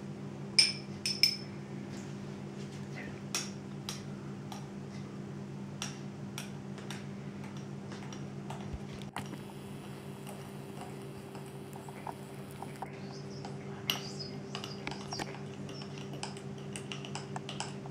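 A spoon stirring baking soda into vinegar in a glass, clinking against the glass now and then, over a steady low hum.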